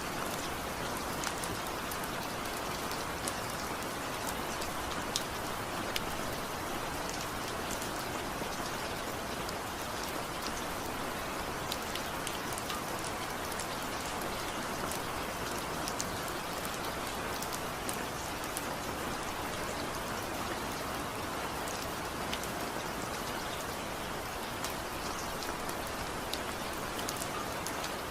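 Steady rain falling, with a dense hiss of rainfall and many small individual drop patters on a surface. No thunder.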